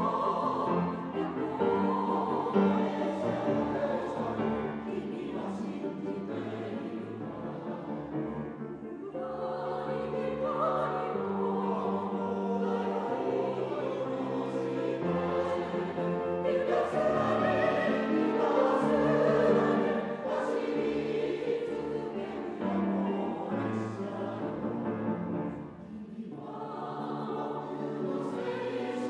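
Mixed choir of women's and men's voices singing a Japanese song in sustained phrases, accompanied by grand piano. The volume dips briefly near the end, between phrases.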